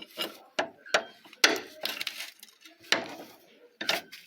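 Metal hand tool clinking and knocking against car steering parts: a handful of sharp, irregular strikes with short ringing, the loudest about one and a half seconds in.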